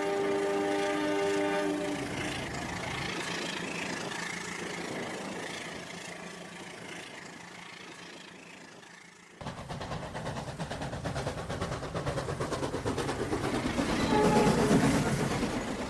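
Train horn sounding a held chord that stops about two seconds in, followed by a fading rumble. Then comes a sudden change to a train's rapid, even wheel clatter, with a short horn blast near the end.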